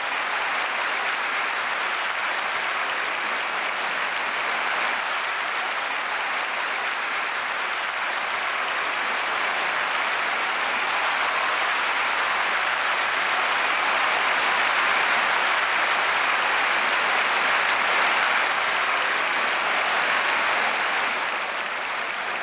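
Large audience applauding steadily in a big sports hall, swelling a little past the middle and easing off near the end.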